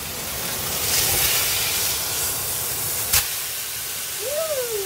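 Steak sizzling loudly in a very hot cast iron skillet, a steady hiss that swells during the first second. A single sharp click about three seconds in.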